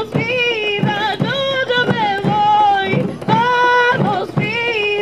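Women singing a folk melody in held, sliding notes over a drum ensemble led by a bombo legüero, with the drums striking steadily about twice a second.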